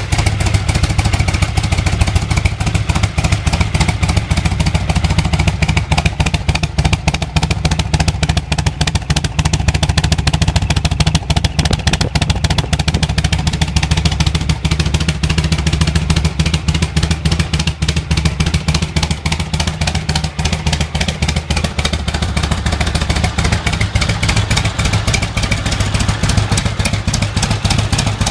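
Harley-Davidson FXB Sturgis V-twin running steadily at idle through stock-style replica mufflers, with an even, unchanging beat.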